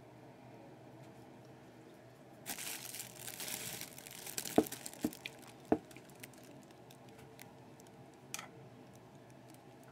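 Crinkly rustling for about two seconds as the beaded tree's plaster stand is handled and turned, followed by three sharp knocks close together and one fainter click a few seconds later.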